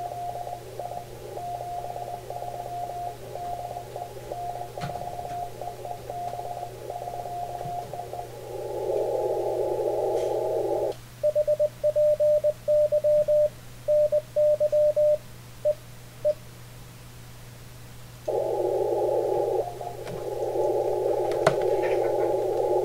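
Icom IC-7300 receiver audio through a narrow CW filter: a band of hiss with weak Morse code from another station keying in it. About 11 seconds in the hiss drops out and the rig's own sidetone keys out about five seconds of louder, clean Morse as it transmits keyboard-sent CW ("HPY NY"). The hiss returns near the end. A steady low hum runs underneath.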